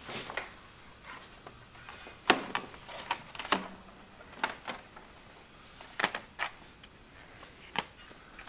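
Scattered light knocks, clicks and scrapes of books and boards being handled and shifted on a shelf, about ten short sharp sounds with pauses between them.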